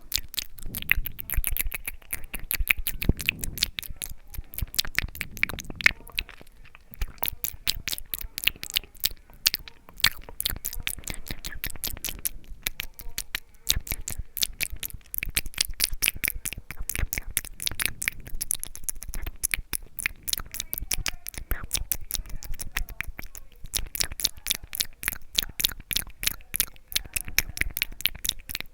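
Close-miked ASMR mouth sounds: rapid, crisp clicks and smacks of the lips and tongue, many a second, with short pauses.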